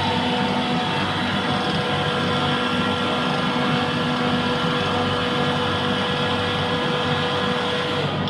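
Trane chiller compressor running steadily, a constant mechanical drone with a steady whine in it, the abnormal noise from the compressor's discharge valve side.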